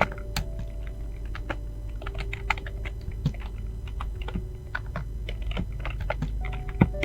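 Fast typing on a computer keyboard: a quick, uneven run of key clicks, several a second, with a few louder key strikes.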